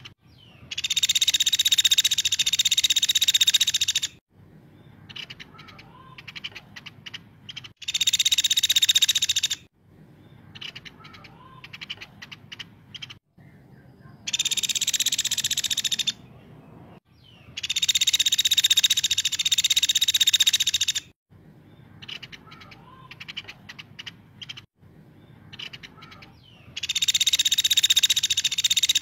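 Caladi, a small Indonesian woodpecker, calling in full voice: five loud, high-pitched rapid trills, each lasting one and a half to three seconds, with soft quick ticking and short calls in the gaps between them.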